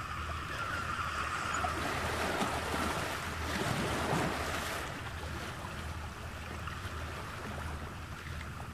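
Ocean surf: a steady rushing wash of waves that swells up around the middle and then eases off.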